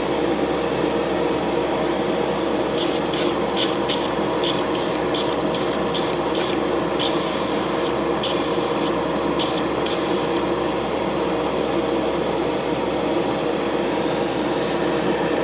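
Spray paint hissing from a nozzle in a quick series of short bursts, then a few longer passes, stopping about ten seconds in, over a steady machine hum.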